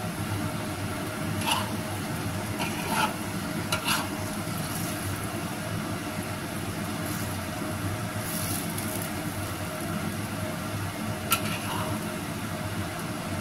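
Yellow noodles sizzling in a hot wok as they are stir-fried, with a metal spatula scraping and clinking against the wok a few times, sharpest about a second and a half, three, four and eleven seconds in. A steady low hum runs underneath.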